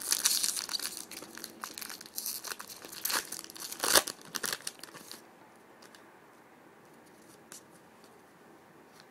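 A trading card pack wrapper being torn open and crinkled by hand, a dense crackle over the first five seconds with the loudest rip about four seconds in, then quiet.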